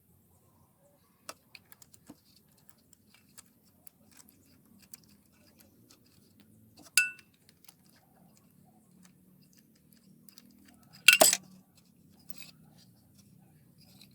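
Metal hand tools clinking and knocking. There are scattered light clicks, a sharp clink that rings briefly about seven seconds in, and a louder knock about eleven seconds in.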